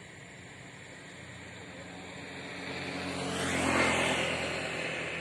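A motor vehicle passing close by: its engine and road noise swell over about two seconds, peak a little before the four-second mark, then fade away.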